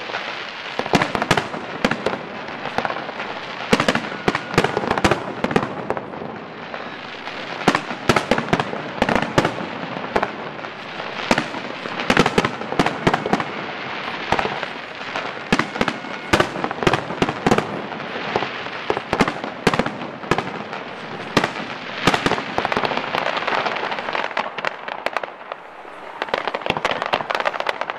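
Aerial fireworks display: a dense, irregular run of sharp bangs and crackles from bursting shells.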